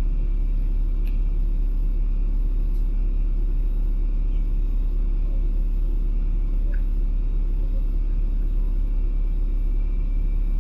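Steady low rumble of a LiAZ-5292.65 city bus under way, its engine and road noise heard from inside the passenger cabin.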